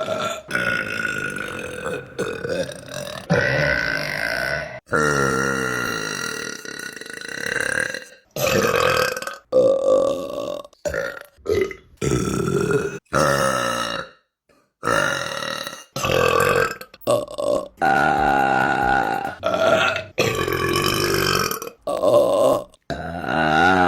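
A string of women's burps, one after another, each a pitched, wavering belch lasting from about half a second to about three seconds, with abrupt starts and stops where one clip cuts to the next.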